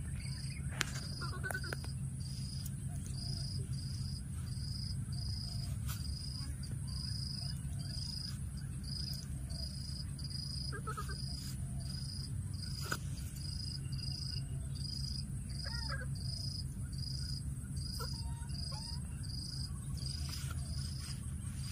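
Outdoor insect chorus: a high, even chirp repeating about one and a half times a second over a steady, thin, higher-pitched buzz. A few faint short animal calls come about halfway through and again later.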